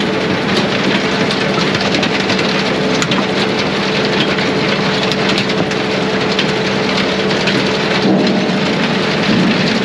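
Brute Force USA 18-24 HD diesel firewood processor running under load: a steady engine and hydraulic drone with a steady whine, and scattered knocks and rattles of wood. The whine breaks off about eight seconds in.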